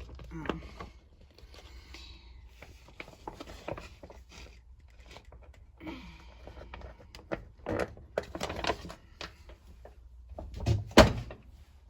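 Laundry detergent being poured and its bottle and cap handled at a washing machine: short stretches of soft pouring, scattered light clicks and knocks, and a louder knock near the end.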